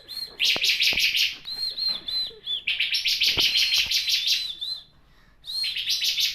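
Ciblek kristal (bar-winged prinia) singing: bursts of rapid, buzzy trills alternating with short, arched whistled notes, with a brief pause about five seconds in.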